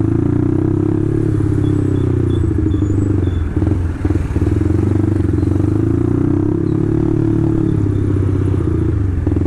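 Motorcycle engine and exhaust running under way, the pitch rising and falling twice as the throttle is opened and eased off, with a brief drop about four seconds in. The rider says the engine has not yet reached full temperature.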